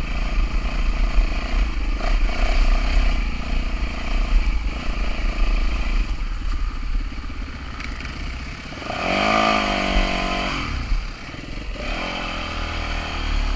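Yamaha WR-F enduro bike's single-cylinder four-stroke engine running while riding, with wind rumble on the microphone. About nine seconds in, the engine revs up hard, its pitch rising, then drops back a second and a half later.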